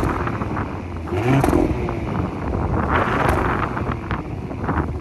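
Audi SQ5's turbocharged 3.0-litre V6 running through an exhaust with its front resonators deleted, blipped up in short revs that surge a couple of times and again near the end.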